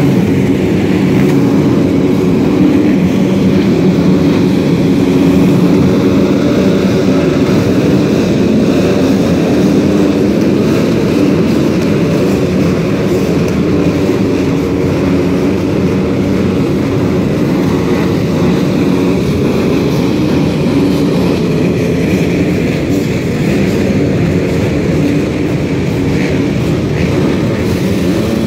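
Many motocross bike engines running together, a loud, steady drone that holds through the whole stretch.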